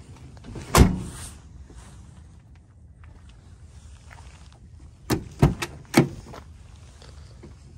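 The steel cab door of a 1979 Ford F-350 slams shut about a second in. A few seconds later come three sharp metallic clicks from the chrome push-button outside handle and the latch releasing as the door is opened.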